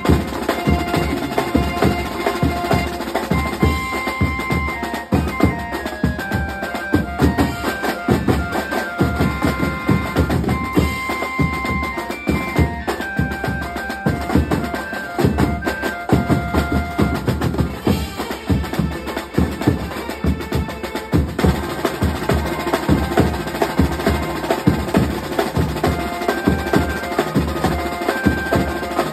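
Banjo-party band music: fast, dense drumming on a rack of tom drums and cymbals with deep drum beats under it, and a melody of held notes over the top.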